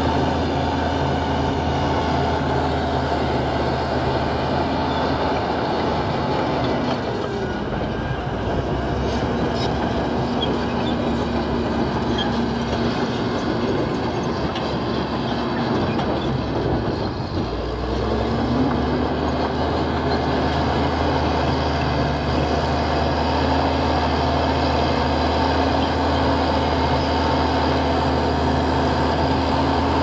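Bulldozer's diesel engine working steadily, with a high squeal and clank from its crawler tracks. The engine note sags twice, about a quarter of the way in and just past halfway, then picks up again.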